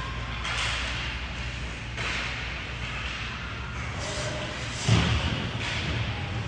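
Sounds of a basketball game in a hall: a steady wash of court and crowd noise, with one loud thud about five seconds in.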